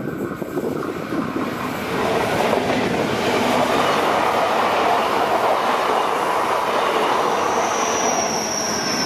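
Double-deck Renfe Rodalies electric commuter train running past close by: a loud rush of wheels on rail that swells about two seconds in and holds. A thin, high wheel squeal rises above it near the end.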